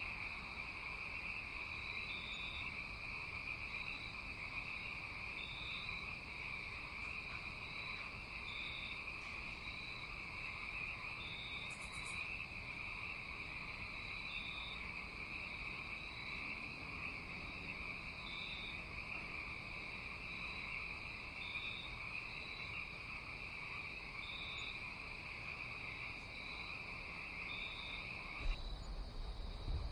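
Night chorus of insects such as crickets: a steady high drone with short, higher chirps repeating about once a second. Just before the end the drone stops abruptly and a low rumble comes in.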